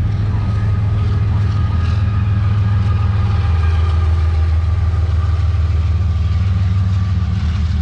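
CSX freight train rolling past: a steady, loud low rumble with faint steady tones above it.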